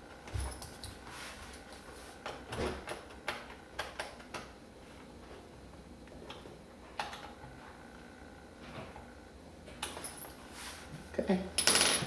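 Plastic hard-drive bay cover being fitted onto the underside of a laptop: scattered light clicks and taps of plastic on plastic, with a louder clatter near the end.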